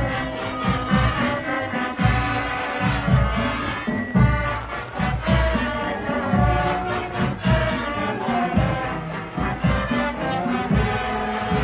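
Marching band music: a brass melody over heavy, steady drum beats.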